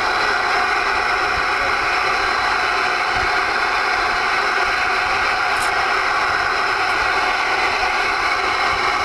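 Steady hiss of static from a Galaxy DX-99V2 ten-metre radio's speaker as it receives on the antenna.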